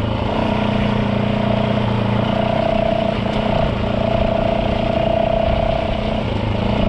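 Yamaha WR450F single-cylinder four-stroke dirt-bike engine running at a steady pace while the bike is ridden, its note holding fairly even with brief dips a couple of times.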